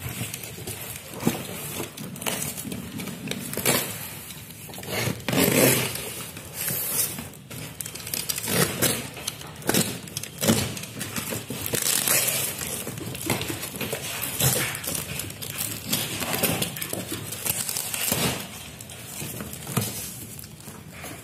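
Cardboard parcel and brown packing tape being cut with a blade and torn open by hand: irregular crackling, tearing and scraping, in uneven bursts.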